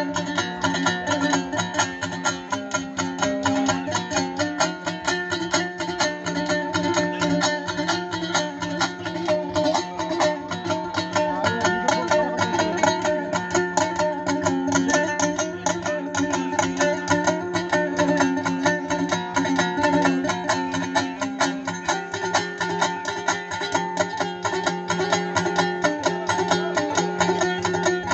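Uzbek dombra, a long-necked two-string lute, strummed in very fast continuous strokes over steady droning strings, as a traditional bakhshi instrumental; the chord steps up about three-quarters of the way through.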